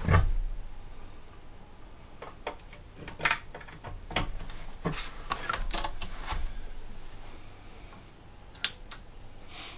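Irregular clicks and knocks of audio cable plugs and metal chassis being handled while the cables are connected at the back of a cassette deck, with a louder knock at the very start.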